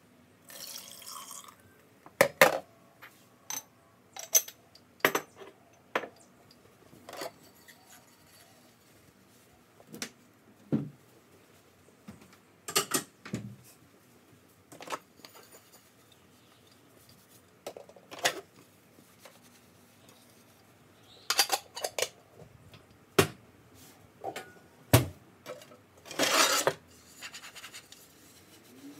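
Washed dishes and cutlery being put away: irregular clinks and clatters of crockery and silverware set down and stacked, with a longer clatter near the end.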